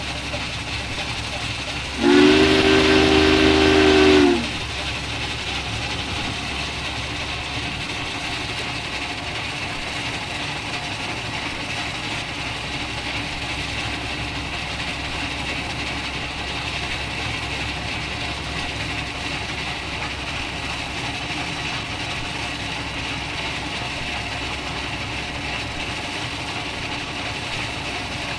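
Duluth, Missabe & Iron Range 2-8-8-4 Yellowstone steam locomotive 225 blowing its chime steam whistle once for about two seconds a couple of seconds in, the pitch sagging as the blast cuts off, then the steady sound of the locomotive running at speed.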